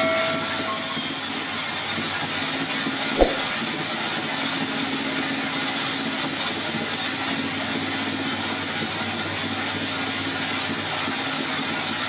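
A large sawmill band saw running steadily, its blade going through timber. There is one sharp knock about three seconds in.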